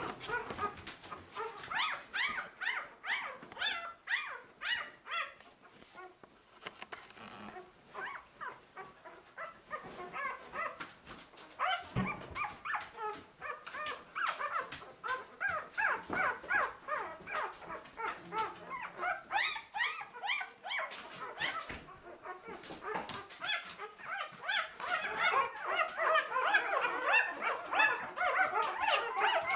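A litter of two-week-old puppies whimpering and squealing: many short, high calls overlapping, sparser for a moment early on and busiest and loudest near the end.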